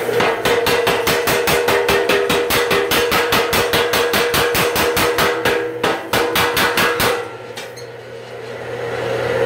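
Home-built power hammer with a 55-pound ram over a 600-pound anvil, pounding a hot steel billet flat with rapid, even blows at about five a second. There is a brief break a little under six seconds in, and the blows stop about seven seconds in, leaving a steady hum.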